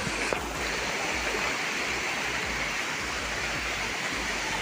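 Steady rushing of flowing water from a rain-swollen stream.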